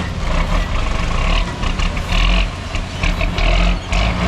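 Heavy diesel dump truck's engine running with a deep, steady rumble, with several short bursts of hiss over it.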